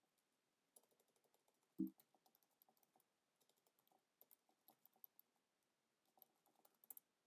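Computer keyboard typing, faint, with quick runs of keystrokes and short pauses between them. A brief low sound comes just under two seconds in.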